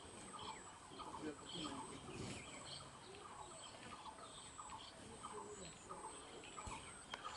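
Faint wild bird calls: short chirps repeating about two or three times a second over a steady high whine.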